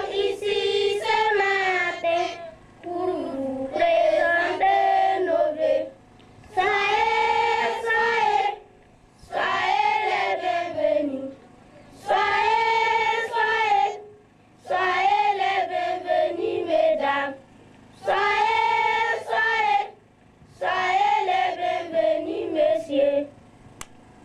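A group of children singing a song together, in phrases of about two seconds split by short pauses.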